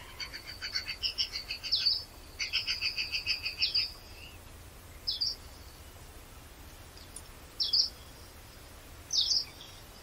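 Wild songbirds singing in forest: two fast runs of repeated high notes over the first four seconds, then three short separate calls a couple of seconds apart.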